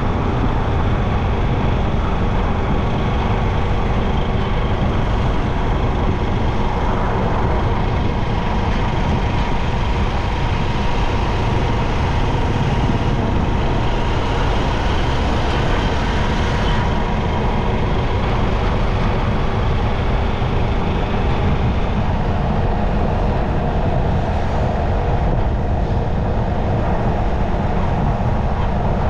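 Steady road traffic noise heard while riding a bike through busy streets, with a constant low rumble and no sudden events.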